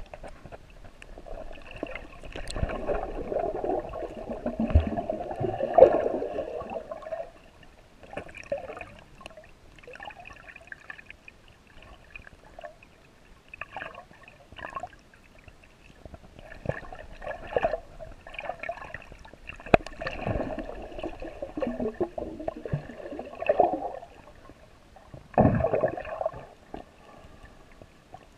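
Water sloshing and gurgling around a GoPro camera in the sea, heard muffled through the camera, in irregular surges a few seconds long.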